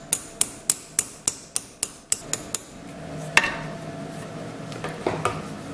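A steel hammer tapping rapidly and lightly, metal on metal, to drive a copper PEX crimp ring and vinyl air hose onto a brass air fitting. There is a quick run of about nine even taps, roughly three a second, then one harder tap and two last ones near the end.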